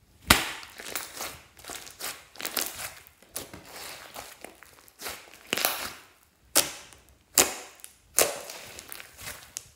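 Thick pink slime squished and folded by hand, giving a string of sharp, wet pops and crackles as trapped air is pressed out of it. The pops are irregular at first, then come about once a second near the end.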